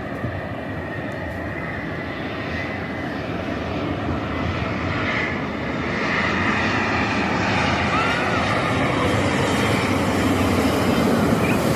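Rolls-Royce Trent XWB jet engines of an Airbus A350-941 airliner on its landing approach: a steady jet rumble and rush of air that grows gradually louder as the plane nears.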